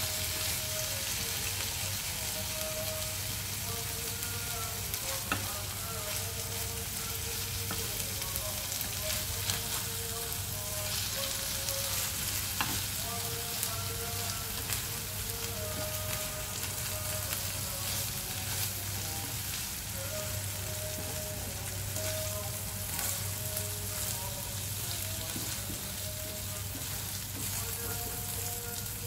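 Corned beef and egg sizzling in a hot frying pan, a steady crackling hiss with frequent small pops, as a wooden spatula is worked through the mixture.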